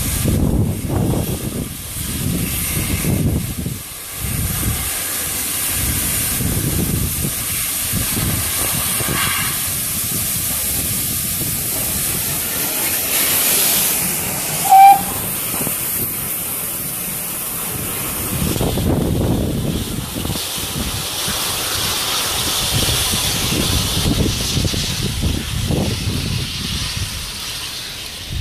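Steam hissing from an ex-GWR 5101 class large prairie tank locomotive as it runs slowly past close by on the next track. A short, loud whistle note sounds about halfway through.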